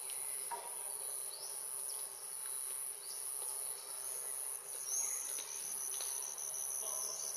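Insects droning in one steady high-pitched note, joined about five seconds in by a second, rapidly pulsing insect trill, with a few faint short chirps.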